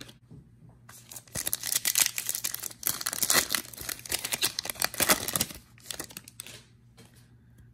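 Foil wrapper of a 2021 Illusions football card pack being torn open and crinkled by hand. A dense run of crackling rips starts about a second in and dies away near the end.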